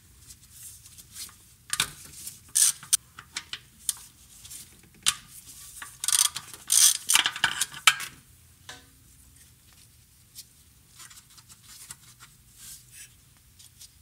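Hand ratchet clicking in short bursts as 12 mm bolts are backed out, with a few louder runs of clicks in the first half; after about eight seconds only light, scattered metal taps.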